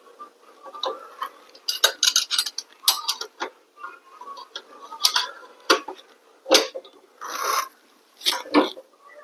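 Metal hand tools clinking and clicking on a motorcycle's rear axle and axle nut as it is worked loose, with a quick run of clicks about two seconds in and a short scrape near seven seconds.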